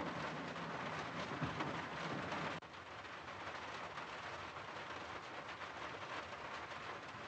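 Steady rain falling, an even hiss; the level drops suddenly about two and a half seconds in.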